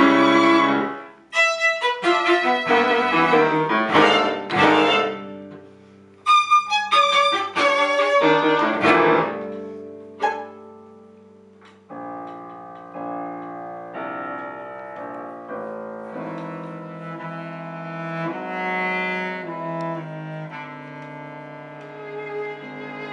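Piano trio (violin, cello and piano) playing chamber music. A loud held chord breaks off about a second in, then quick piano-led passages come in two phrases that each fade away; from about halfway, violin and cello play a soft, sustained line over the piano.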